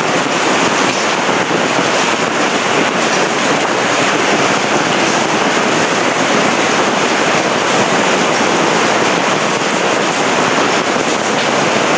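Hail and heavy rain hitting a pop-up tent canopy: a loud, dense, unbroken patter of hailstones.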